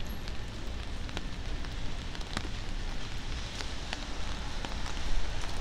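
Rain falling: a steady hiss with many sharp drop ticks scattered through it, over a low rumble.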